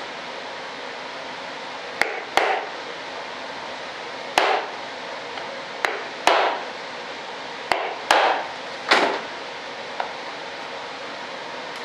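Sharp knocks on a mould board, most followed by a short scrape, coming in about four pairs: work to clear set white resin out of a screw hole.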